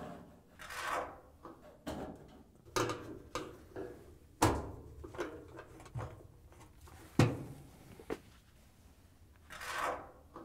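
A Phillips screwdriver turning screws by hand into a dryer's sheet-metal front and top panels: a run of short scraping strokes with a few sharp metallic knocks, the loudest about halfway through and again a few seconds later.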